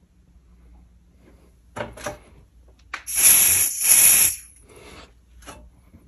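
Aerosol can of Smoke Sabre canned test smoke spraying in two hissing bursts about three and four seconds in, with a few shorter spurts before and after, as simulated smoke is put into a smoke alarm's sensing chamber.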